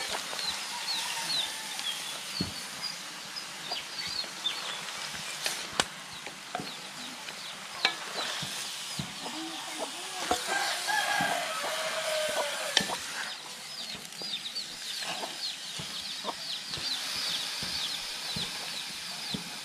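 Frog meat being stirred with two wooden spatulas in a wide aluminium pan over a fire: scattered scrapes and knocks of wood on metal over a soft sizzle. Many quick high chirps sound in the background.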